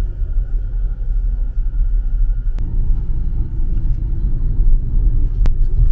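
City street traffic: a loud, steady low rumble of cars, with a sharp click about two and a half seconds in and another near the end.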